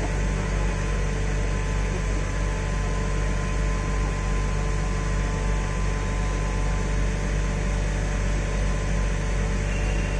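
Heavy construction machinery running steadily: a constant low drone with an even hum and a few steady tones, unchanging throughout.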